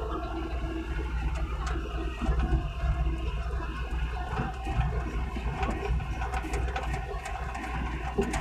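Hitachi mini excavator's diesel engine running steadily, with light clicks and knocks on top, more of them in the second half.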